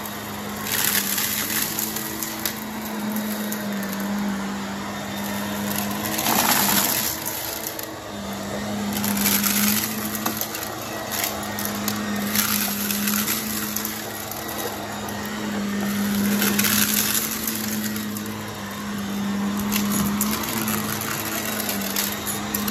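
Vacuum cleaner running with a steady motor hum, with louder bursts of crackling and rattling every few seconds as it sucks up crunchy debris.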